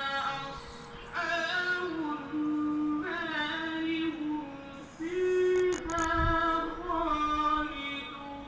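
Quran recitation in a man's voice: long, held melodic notes that slide between pitches, sung in phrases with short breaths between them.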